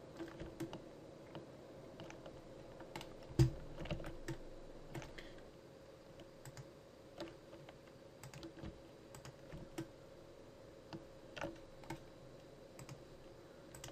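Computer keyboard keys and mouse buttons clicking irregularly, with one louder knock about three and a half seconds in, over a faint steady hum.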